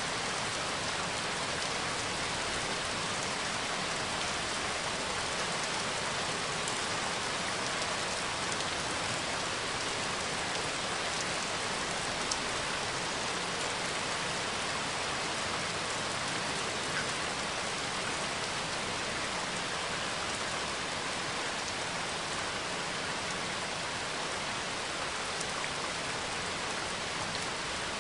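Steady rain falling, an even hiss of rain with a few single drops standing out now and then.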